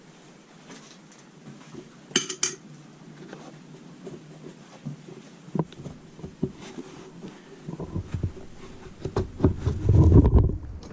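Scattered light clicks and knocks of metal parts and tools being handled, with a brief rattling clatter about two seconds in. Near the end, heavier low rubbing and knocking noise.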